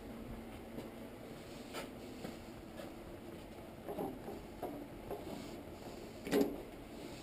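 Scattered light knocks and clicks of hands handling parts and tools, with one louder knock about six seconds in.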